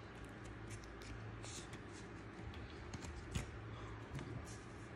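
Faint handling sounds of a trading card being slid into a plastic card sleeve, with a few light clicks, over a steady low hum.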